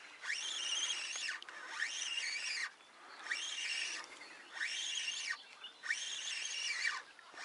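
Spinning reel cranked in about five short bursts while a small hooked fish is reeled in. The gear whine rises and falls in pitch with each burst.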